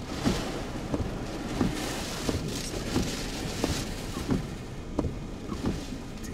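Hurricane eyewall wind and heavy rain lashing a vehicle, heard from inside the cabin: a steady rush broken by frequent, irregular thumps against the body.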